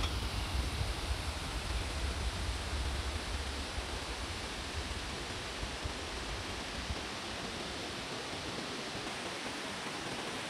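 Steady rush of water in a mountain gorge stream. A low rumble sits under it for the first six or seven seconds, then fades.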